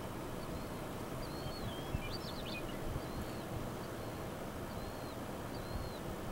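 Steady wind rush over open country, with faint small-bird chirps repeating about once a second and a short flurry of bird notes about two seconds in.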